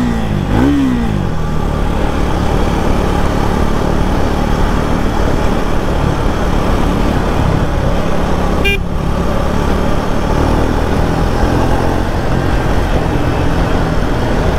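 Triumph Speed 400's single-cylinder engine and exhaust running steadily at cruising speed, over road noise. A brief high beep sounds about nine seconds in.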